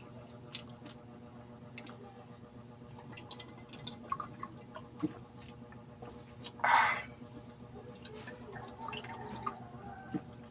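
Faint wet mouth sounds of a man sipping juice from a can and swallowing: scattered small clicks and lip smacks, with one louder, half-second breathy sound about two-thirds of the way through.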